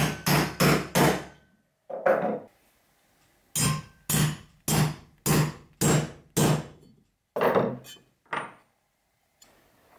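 Hammer striking a hand-held punch through thin brass sheet on a wooden block, raising the teeth of a grater: about a dozen sharp metallic taps, four quick ones at the start, then a run at about two a second after a short pause, with a last two near the end.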